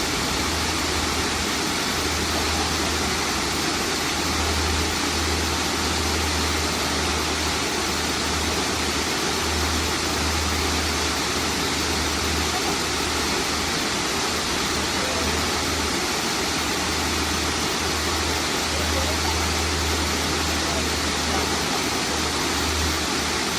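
Waterfall: a steady rush of falling water with no let-up, under a low rumble that comes and goes.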